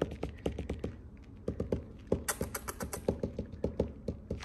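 A run of quick, irregular light taps and clicks, several a second, busiest about two seconds in.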